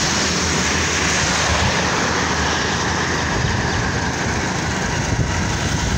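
Steady rushing wind and road noise from a moving vehicle, with a low engine rumble underneath.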